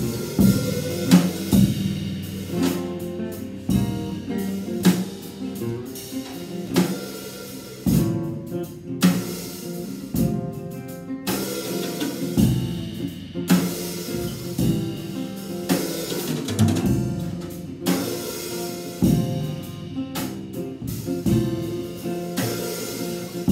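Acoustic guitar strummed together with a drum kit playing along, a live jam of guitar chords over kick, snare and cymbal hits.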